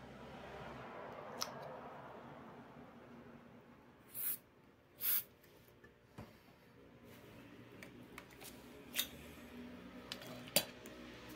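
Two short hisses from an aerosol spray can, a little under a second apart, amid sharp clicks and taps of tools and a wooden arrow shaft being handled.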